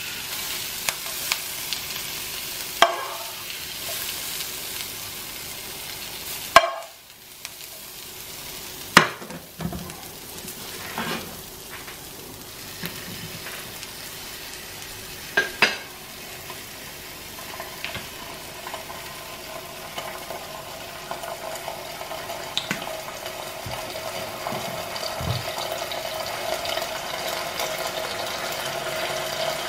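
Peppers and red onions sizzling in a frying pan, with a spoon scraping and knocking against the pan as they are scooped out: several sharp clicks over the first half. A steady hum grows louder through the second half.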